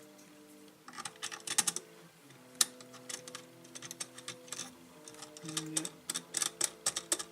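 Irregular clusters of sharp plastic clicks and taps as an SJ4000 action camera and its plastic mount are handled and fitted together.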